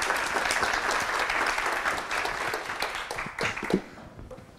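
Audience applauding, many hands clapping densely, dying away near the end.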